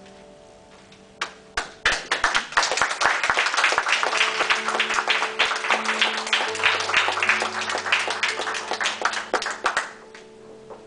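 Small audience applauding: a few separate claps, then steady clapping for about eight seconds that dies away near the end, with the last held notes of a piano accompaniment sounding underneath.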